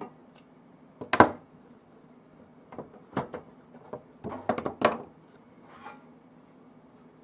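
Knocks and clatter of a workpiece and tools being handled and set down in a workshop. The loudest knock comes about a second in, and a quick cluster of knocks follows a little past the middle.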